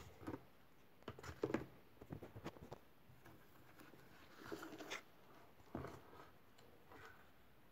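A cardboard model gun being handled: faint rustling, scraping and light clicks of cardboard and paper under the fingers, in several short clusters.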